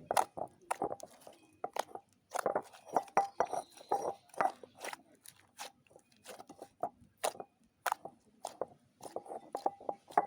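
Slime being worked by hand, giving irregular sharp pops and crackles, several a second, in clusters with short pauses between.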